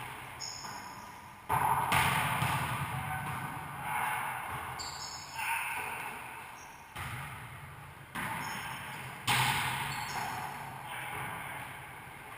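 Wallyball rally: a volleyball is struck by hands and plays off the walls of a racquetball court. There are about ten sharp hits, each echoing in the hard-walled room, with short sneaker squeaks on the hardwood floor between them.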